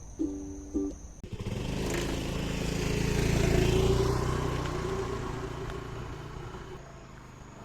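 A motor vehicle's engine passing by: it swells up about a second in, is loudest around the middle, and fades away near the end.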